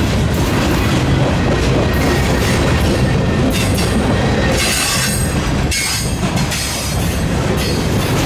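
A long freight train of loaded military flatcars rolling past at track speed: a loud, steady noise of steel wheels on rail, with some wheel squeal.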